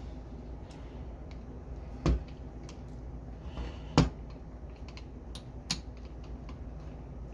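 Small metal parts of a disassembled click-type torque wrench being handled and fitted back together: light taps and clicks, with two louder knocks about two and four seconds in.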